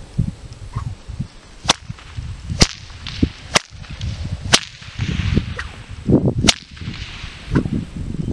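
A long whip cracked overhead from horseback: five sharp cracks, about a second apart, with a longer pause before the last.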